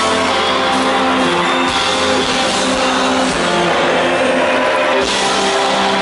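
Rock band playing live: electric guitar over a drum kit, loud and continuous, recorded from the audience.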